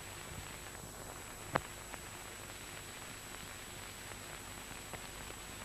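Steady hiss of an old recording with a faint high steady tone, broken by a single sharp click about a second and a half in.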